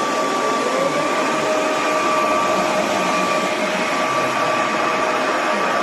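Cordless wet-dry vacuum mop (Roborock F25 GT) running steadily: an even rush of suction and brush-roller noise with a high motor whine. One whine tone rises and settles in the first second as the motor reaches speed.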